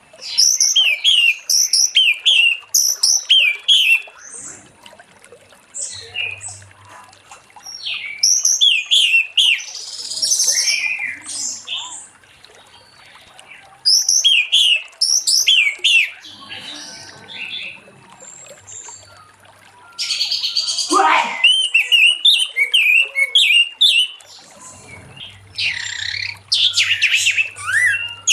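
Orange-headed thrush singing loudly in about five bouts of rapid, high, sliding whistled notes, separated by short pauses.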